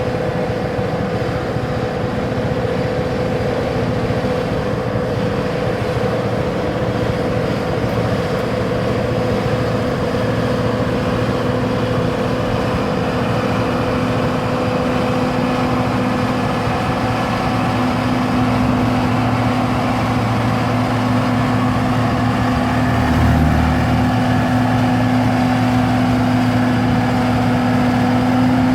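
Diesel engine of a 10-ton vibratory road roller running steadily at constant speed, with a deep, even hum that grows slightly louder toward the end. A brief low thump comes about 23 seconds in.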